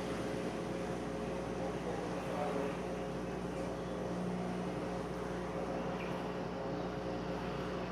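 Washing machine running with a steady motor hum and noise, the abnormal sound the machine is making.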